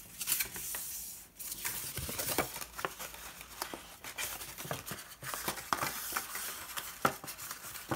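Sturdy printed paper being folded along scored lines and bent into a box by hand: irregular crinkles, creases and rustles.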